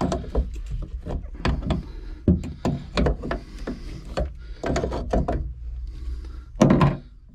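Water-pump pliers clanking and knocking against a boat engine's raw-water inlet strainer cap as the cap is worked with them: a string of sharp irregular knocks and clicks over a low steady rumble.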